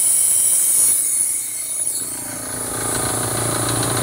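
Compressed air hissing loudly through an air-operated venturi vacuum pump as it pulls a vacuum on a car's A/C system. The hiss eases off, and a little past halfway the steady, rhythmic running of a small twin-tank electric air compressor comes in.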